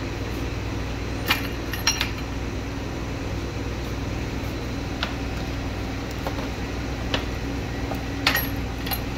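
Scattered light metallic clinks and knocks from a welded steel Z-rack dancing-bed frame as it is lifted, carried and set down on a wooden pallet, over a steady low background hum.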